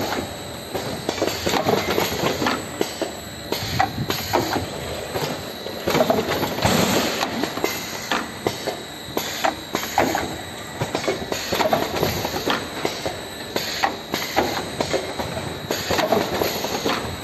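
DR-ZH226A vertical automatic wine-bottle cartoning machine running: a continuous, busy clatter of clicks and knocks from its rotary carton turret and bottle-feed mechanism, with a louder burst about six to seven seconds in.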